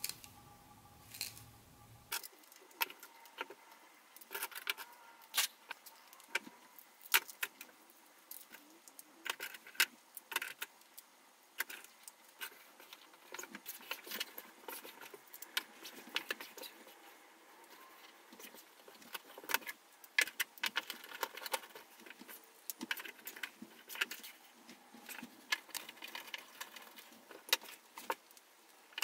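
Small hard parts of a model train set being handled: irregular sharp clicks and light rattles.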